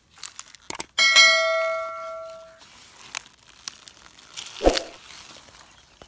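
A couple of quick clicks, then a bright bell ding that rings on and fades over about a second and a half: the sound effect of an on-screen subscribe-button animation. Near the end comes a rustling crunch with a sharp thump.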